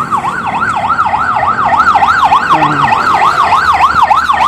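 A loud siren in fast yelp mode, its pitch sweeping up and down about four to five times a second.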